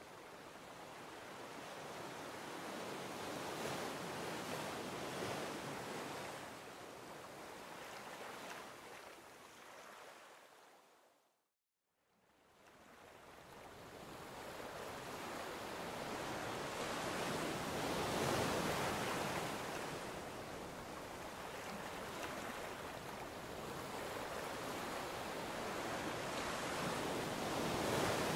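Ocean surf washing on the shore: a steady rushing noise that swells and eases every few seconds. About a third of the way through it fades out to silence for a moment, then builds back in.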